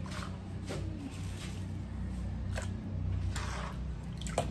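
Metal spoon stirring sugar and water in a metal pan to dissolve the sugar, with soft scrapes and a few light clinks against the pan, the sharpest clink near the end. A steady low hum runs underneath.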